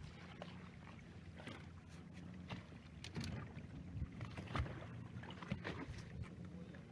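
Boat engine running steadily at low revs, with irregular splashes of water against the hull.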